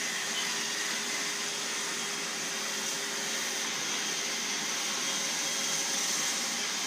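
Vacuum cleaner running steadily: an even rushing noise with a high whine over it.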